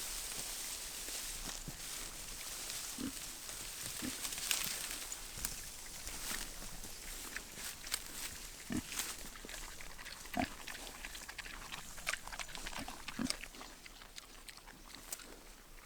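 Pigs grunting now and then, a handful of short low grunts among rustling and small clicks.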